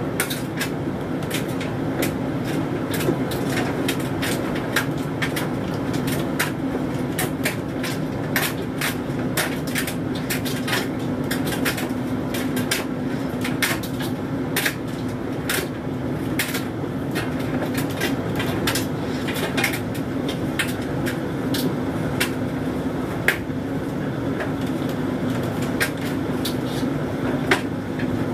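Hoover Dynamic Mega 10kg condenser tumble dryer running a low-heat synthetics cycle: a steady motor and fan hum with frequent irregular clicks and taps from the load tumbling in the drum.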